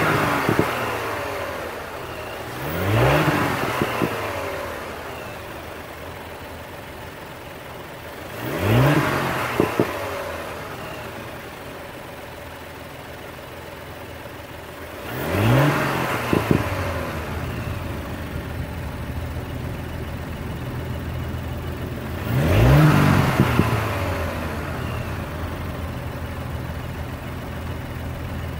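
Audi SQ5's 3.0-litre V6 idling, heard at the open engine bay, blipped to higher revs and let fall back four times about six seconds apart. Each blip is a quick rising then falling sweep in pitch, with a couple of sharp cracks as the revs drop.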